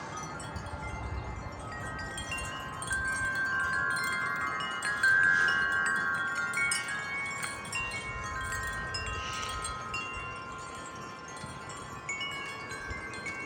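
Several tuned metal wind chimes ringing in the wind, many overlapping tones struck again and again, each ringing on and fading. A low wind rumble sits under them near the start.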